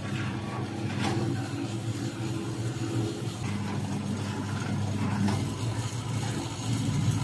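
Steady mechanical drone of a running motor, even in level throughout.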